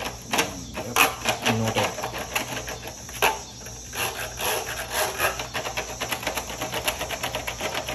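Fingers rubbing ghee across the ribbed bottom of a disposable aluminium foil tray: many short, scratchy scraping strokes on the foil.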